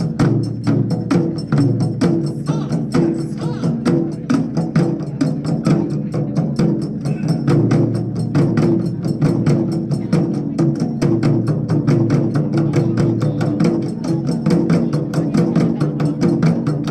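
Taiko drum ensemble playing: several drummers striking barrel-shaped taiko drums with wooden sticks in a fast, even rhythm of about five strokes a second.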